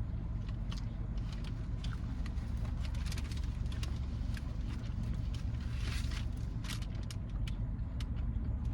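Steady low rumble of a car's engine heard inside the cabin, with scattered small clicks and crackles over it.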